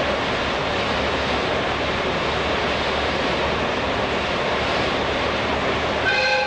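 Steady running noise of an old-type JNR passenger coach travelling through a tunnel behind diesel locomotives, heard from inside the coach. About six seconds in, a train horn starts to sound.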